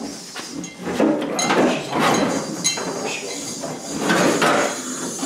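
Steel gas tank scraping and clunking against the car's underside and the jack's saddle as it is levered and shoved along with a bar, in a string of uneven scrapes and metallic knocks.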